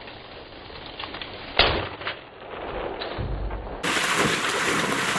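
A single shotgun shot about one and a half seconds in, the loudest sound here, fired at a blue-winged teal over the decoys. A steady outdoor hiss grows louder near the end.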